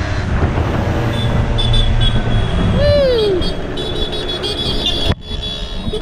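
50cc two-stroke scooters riding along a street, engines running under wind and road noise. A short tone falls in pitch about three seconds in, and the sound breaks off suddenly for a moment near the end.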